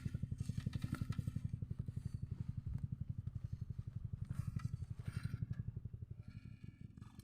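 A small engine running with a fast, even chugging pulse that grows fainter near the end.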